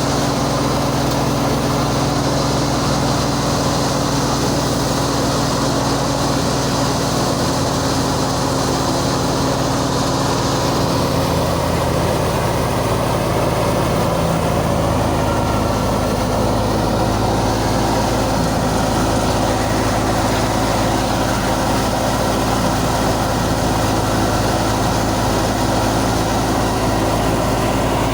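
Engine-driven wheat harvesting machinery running steadily at constant speed, a continuous heavy engine drone with steady tones and mechanical noise over it.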